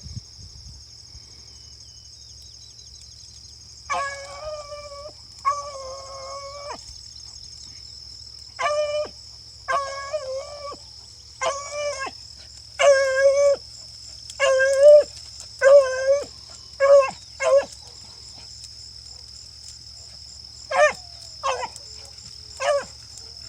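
Rabbit hounds baying on a rabbit's trail: two longer drawn-out bawls about four seconds in, then a run of short, evenly spaced barks, and a few more near the end.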